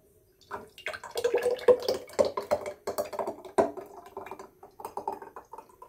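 Thick cream of chicken soup pouring from a square pan into a glass mason jar: irregular plops and splashes as the jar fills.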